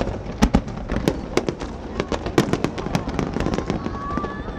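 Fireworks display: a rapid, irregular run of bangs and crackles, many overlapping, several a second.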